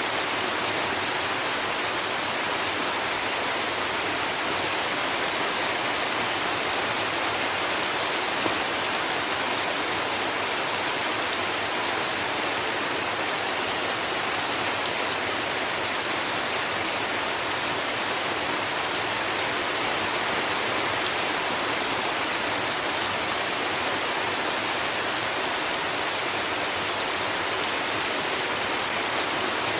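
Steady heavy rain falling, an even hiss with scattered sharper drop ticks.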